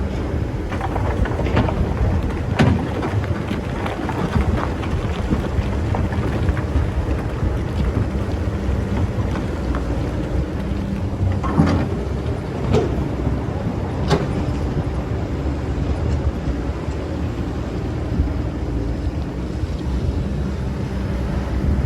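Excavator's diesel engine running steadily, with scattered crunches and knocks as the bucket digs and moves sand, over a rain-like hiss of sand spilling.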